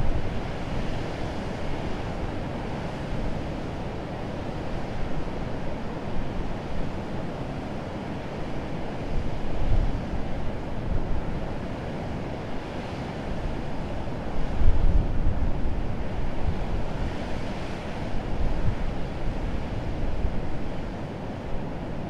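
Urriðafoss waterfall and rapids: a steady, loud rush of heavy falling and churning water. Gusts of wind buffet the microphone, most clearly about ten seconds in and again about fifteen seconds in.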